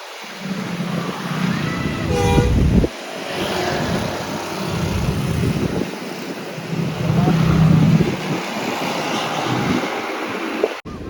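Bus engine running with traffic noise, and a short horn blast about two seconds in.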